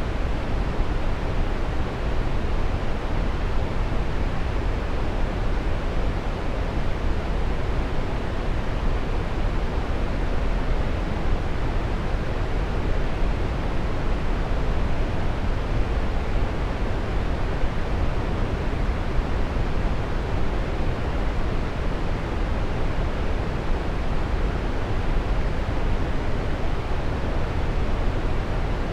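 Waterfall rushing steadily: an even, unbroken wash of water noise, strongest in the low range, with no changes.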